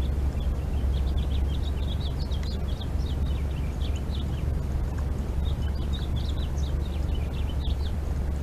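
Small birds chirping in quick runs of short, high notes, which come and go, over a steady low rumble that is the loudest sound throughout.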